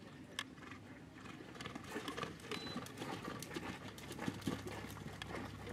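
Horse cantering on a sand arena: a run of soft, irregular hoofbeats that grows louder about two seconds in.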